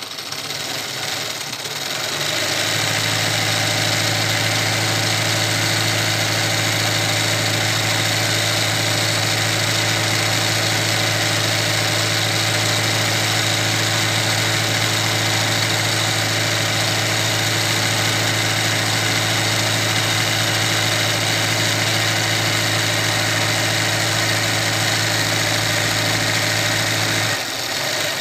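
Electric sewing machine running steadily at speed, stitching embroidery through fabric held in a hoop. It winds up over the first couple of seconds and slows down near the end.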